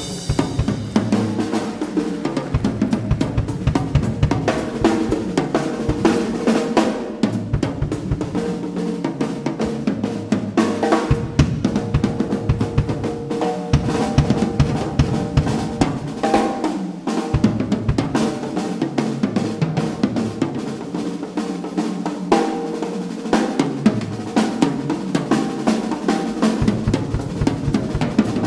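Drum solo on a Pearl drum kit: dense, rapid strokes on the snare, bass drum and cymbals.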